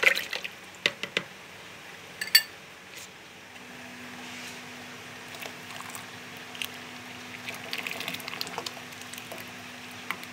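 Rice-flour and milk slurry poured from a plastic jug in a thin stream into a pot of boiled milk: a soft pouring and splashing. A few sharp knocks sound in the first couple of seconds, and a steady low hum joins about a third of the way in.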